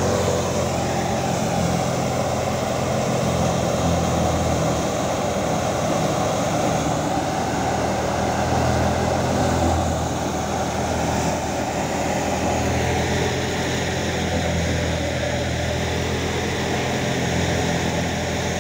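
Tractor-driven wheat thresher running steadily under load. The tractor's diesel engine holds an even hum while the thresher drum and blower churn through the fed straw.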